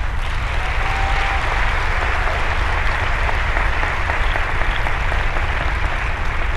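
An audience applauding steadily, a dense even clapping.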